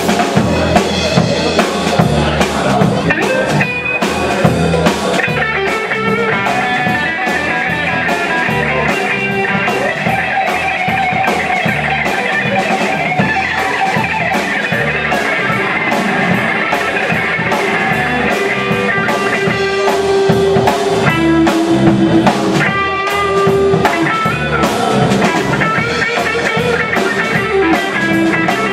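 Live rock band playing an instrumental passage: electric guitars over a steady drum kit beat, with no singing.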